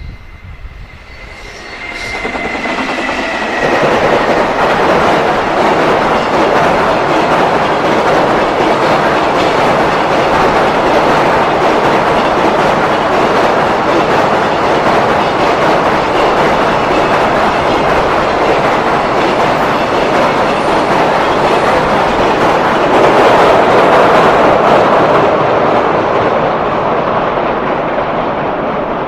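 A freight train passing at speed, its wheels clattering on the rails. The noise builds over the first few seconds, stays loud for about twenty seconds while the wagons go by, then begins to die away near the end.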